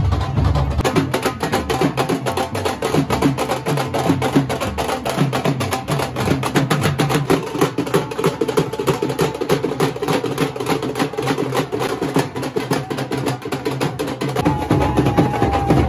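Nashik dhol band drumming: several barrel dhols beaten with sticks in a fast, dense rhythm. About a second before the end, a deep bass and a steady pitched tone join in.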